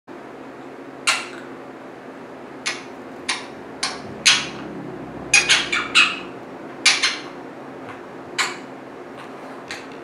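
Pet parrot making about a dozen short, sharp clicking calls, spaced out at first, then several in quick succession around five to six seconds in.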